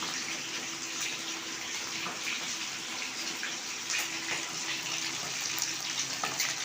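Marinated chicken pakoras deep-frying in hot oil in a kadai: a steady sizzle with scattered small pops.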